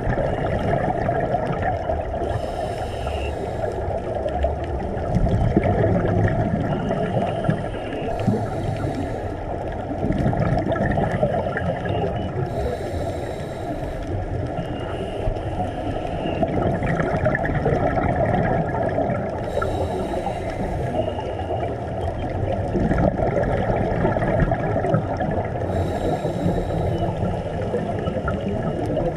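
Underwater recording of a scuba diver's regulator breathing: a short hiss about every six seconds over a steady underwater wash of noise.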